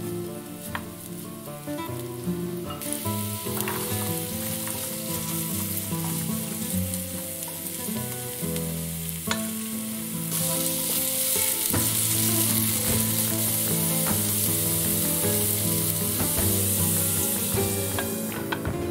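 Shallots and diced potatoes sizzling in olive oil in a nonstick frying pan, stirred with a wooden spatula. The sizzle grows louder about three seconds in and again about ten seconds in, then drops near the end as a glass lid covers the pan.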